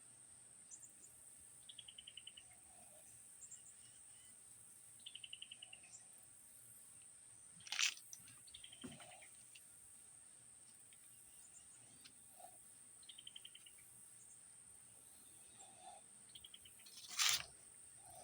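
A cricket chirping: short pulsed trills, high-pitched, every couple of seconds. Two sudden sharp bursts stand out over it, about eight and seventeen seconds in.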